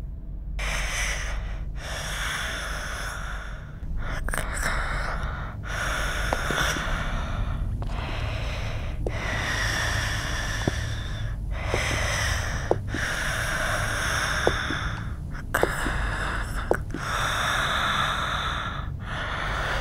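Heavy breathing: long breaths in and out, about one every two seconds, over a low steady hum.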